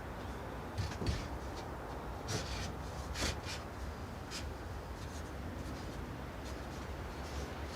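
Handsaw cutting wood: a few short, irregular rasping strokes against a low steady hum.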